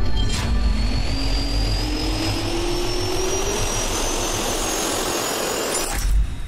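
Jet engine spooling up: a rising whine over a steady rush, with a sharp hit about half a second in and another near the end.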